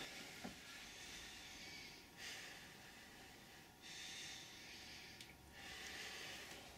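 Near silence: faint room hiss, swelling softly three times.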